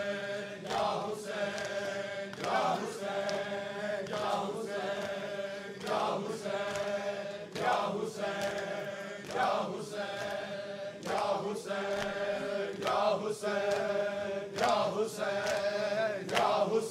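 Men's voices chanting a noha refrain together, over a steady rhythm of sharp open-hand slaps on chests (matam), a little more than one a second.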